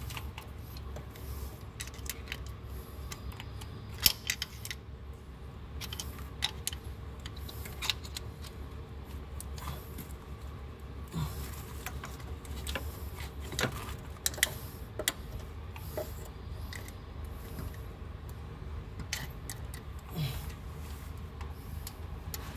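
Scattered light metallic clicks and clinks of a hand tool against the rocker arms and lifters of a Chrysler 4.7 L V8's open valve train, over a steady low hum. One sharper click about four seconds in.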